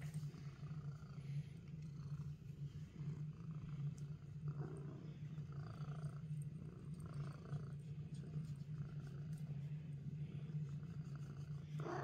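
Domestic cat purring steadily and continuously, close up.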